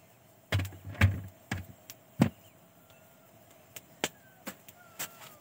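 Sharp knocks with dull thuds: four heavier ones in the first two and a half seconds, then a few lighter clicks about half a second apart near the end, with faint thin whistles among them.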